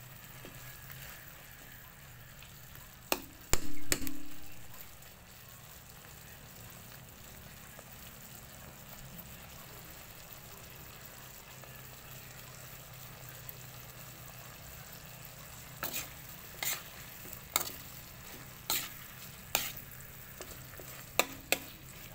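Chicken feet simmering in adobo sauce in a metal wok, with a low steady sizzle. A metal utensil clinks and scrapes against the pan as it stirs: a loud ringing clang about three and a half seconds in, a quiet stretch, then a run of clinks in the last six seconds.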